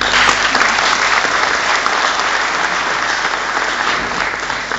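Audience applauding, a dense steady clapping that tails off near the end.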